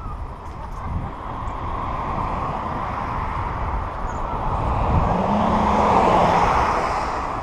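Expressway traffic running alongside, with a passing vehicle swelling to its loudest about five to six seconds in and then fading. A constant low rumble lies underneath.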